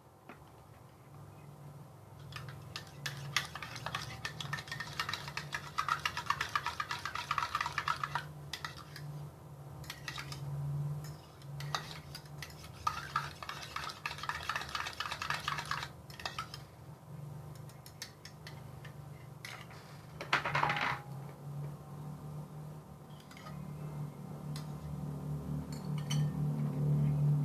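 A spoon stirring and clinking against a dish in two spells of rapid clinks, then one ringing clink about three-quarters of the way through. A low steady hum runs underneath.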